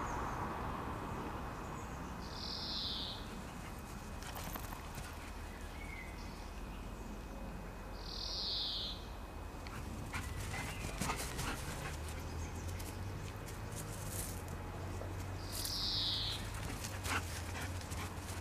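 A dog at play giving three short, high-pitched whimpers several seconds apart, with scattered clicks and rustling in the second half.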